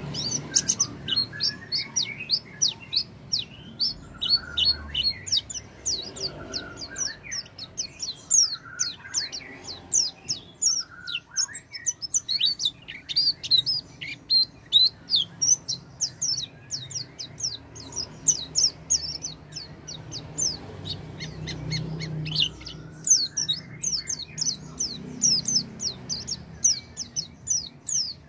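White-eye (pleci) singing: a fast, unbroken stream of high, thin chirps and twitters, several a second. It is played as a lure call to set off a caged pleci that has stopped singing.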